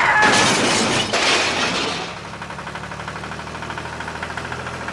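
A crashing, breaking sound for about two seconds, then an engine idling steadily with a faint rapid pulse.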